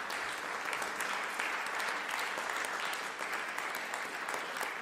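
Applause: many hands clapping together at a steady level.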